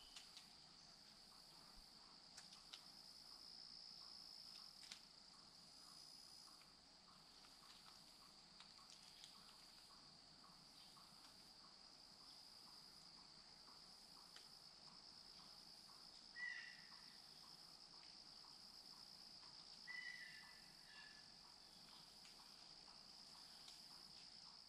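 Faint, steady high-pitched trill of crickets in the woods. A few short chirps come about two-thirds of the way through.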